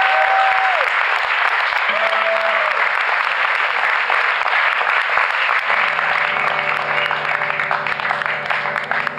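Audience applauding loudly at the end of an electric guitar song, with a held note dying away in the first second. A steady low hum sets in about six seconds in.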